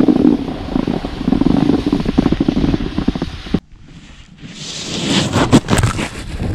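Snowboard sliding over hard-packed snow, its scraping mixed with wind buffeting a GoPro microphone. The sound breaks off suddenly about three and a half seconds in, then a hiss of spraying snow and scraping rises as the board skids sideways through loose snow.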